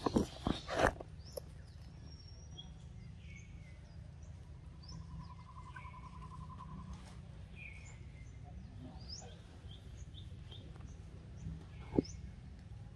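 Birds chirping, many short high chirps scattered throughout, with a buzzy trill in the middle. A few sharp crunches in the first second and one near the end come from a monkey biting into a large yellow fruit.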